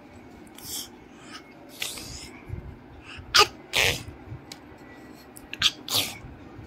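A person sneezing: short, sharp bursts of sound, loudest a little past the middle and again near the end, with softer breathy puffs before.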